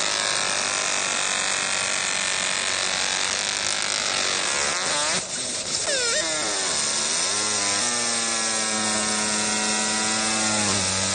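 Laser engraving machine working on a metal plate: its drive motors whine in several tones that slide up and down as the head follows the curves, over a steady hiss. The whine settles into a steadier lower tone for a couple of seconds late on.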